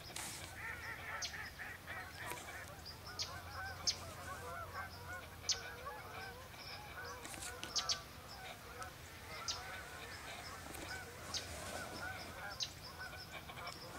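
A large mixed flock of flying ducks and geese calling at dusk, a dense constant chorus of many overlapping distant calls, with short sharp higher calls standing out every second or so.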